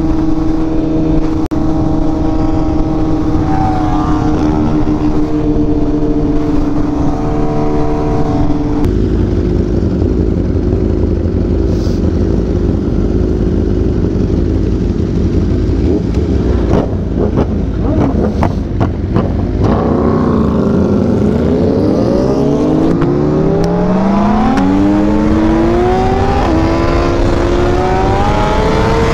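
Sportbike engine running at a steady pitch while cruising, then a jumbled stretch of engine sound from a pack of motorcycles. About two-thirds of the way in it accelerates hard, the pitch climbing and dropping back at each of several upshifts.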